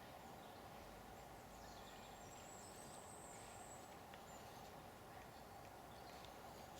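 Faint, steady outdoor ambience, with a thin, high whistle lasting about two seconds near the middle.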